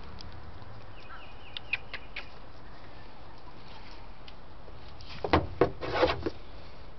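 Knocks and rustles right on the camera's microphone in a cluster about five seconds in, as a baby goat's muzzle presses up against the handheld camera. Before that there are only a few faint clicks and small chirps.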